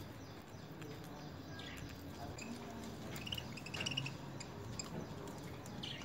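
Budgerigars chirping softly, a few short high chirps around the middle, over faint clicks of beaks nibbling leafy greens.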